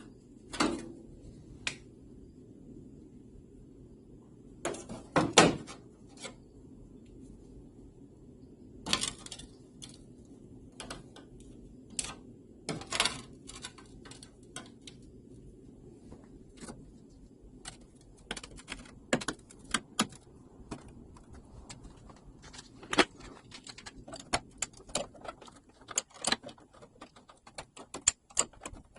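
Irregular clicks, clanks and knocks of metal tools and parts being handled, sparse at first and busier in the second half, with the loudest knock about five seconds in, over a faint low hum.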